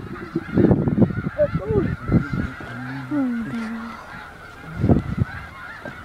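A large flock of snow geese calling nonstop, a dense clamour of many overlapping honks. Low rumbles of wind on the microphone come about a second in and again near the end.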